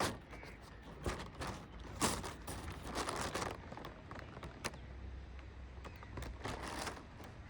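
Rustling, light knocks and footsteps close to a chest-mounted phone, with a low rumble of wind on the microphone.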